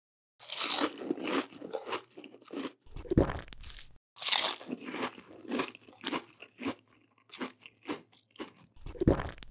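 Crisp crunching sound effects, an irregular run of crunches and crackles of the kind dubbed over stop-motion 'food', with a deeper thud about three seconds in and another near the end.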